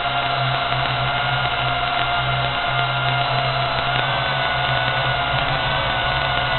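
Drone's electric motors and propellers whining steadily in flight, the pitch shifting slightly about four seconds in.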